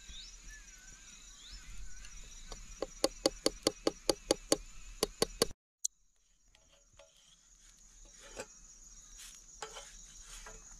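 Crickets chirring steadily under a quick run of about a dozen sharp knocks, about four a second, which cuts off abruptly just past halfway; a few faint taps follow.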